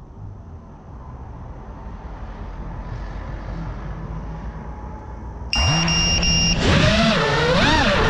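A faint low rumble, then the FPV quadcopter's brushless motors start abruptly to idle with three short high beeps. About a second later they throttle up into a loud whine that wavers up and down in pitch as the quad lifts off.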